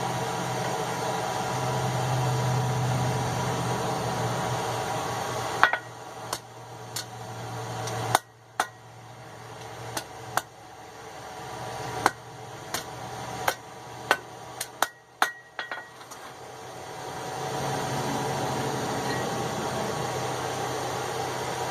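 A hand hammer strikes hot steel on an anvil about fifteen times at an irregular pace, roughly one to two blows a second, with some blows leaving a short metallic ring. This is the blacksmith bending and shaping a tong piece. A steady hum runs before and after the blows.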